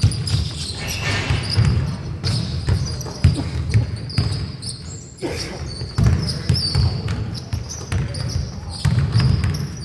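Basketball being dribbled on a hardwood gym floor, thudding repeatedly, with sneakers squeaking in short high chirps and players calling out.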